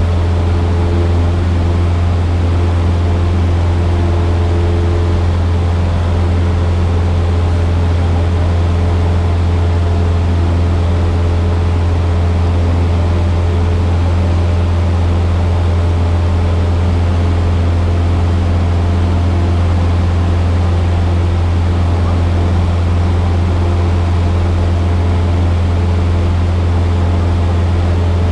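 Piston engine and propeller of a light single-engine plane droning steadily in flight, heard inside the cockpit as a loud, unchanging low hum.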